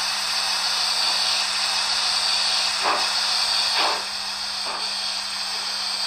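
Sound decoder of a TT-scale BR 95 model steam locomotive playing a steady steam hiss through its small speaker, with slow chuffs starting about three seconds in, roughly one a second.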